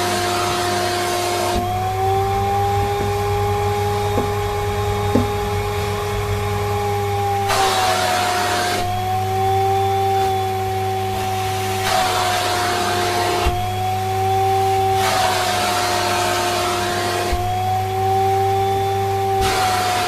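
Siemens Synchropower vacuum cleaner running steadily with its wand nozzle on a fluffy fur tail. Several times over, the rush of air drops and the motor whine rises slightly in pitch as the fur closes off the nozzle, then the air rushes back in when it comes free.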